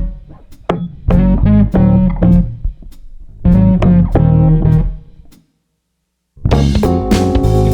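Background music with guitar and bass. It stops completely for about a second near the end, then comes back in with held chords.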